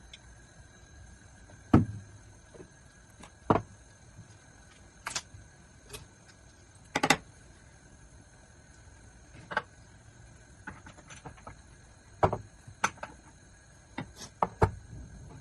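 Kitchen items being handled: about a dozen sharp, irregular knocks and clinks, a few of them close together near the end, over a faint steady hum.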